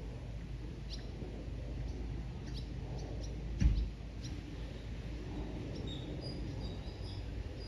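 Small birds chirping in short, high calls scattered through, over a steady low rumble, with one sudden thump about three and a half seconds in.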